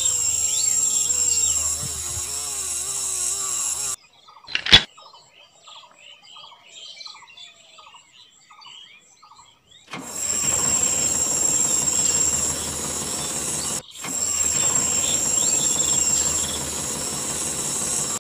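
Small yellow plastic DC gear motor driving a thread-spool winch, running with a whine whose pitch wavers, then stopping abruptly about four seconds in. A sharp click follows, then a quiet stretch with faint chirps. The motor runs again from about ten seconds on, with a brief break near fourteen seconds.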